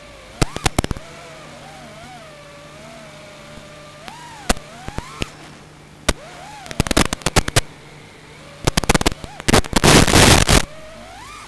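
Small FPV quadcopter's motors whining, the pitch rising and falling with the throttle. Sharp crackles break in repeatedly, and a loud burst of hiss-like noise comes about ten seconds in.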